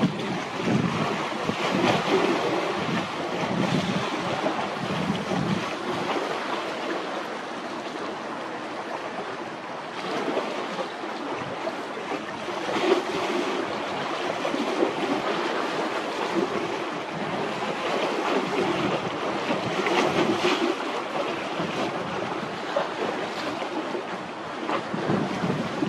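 Strong wind blowing across the microphone in uneven gusts, over the steady wash of rough, whitecapped sea.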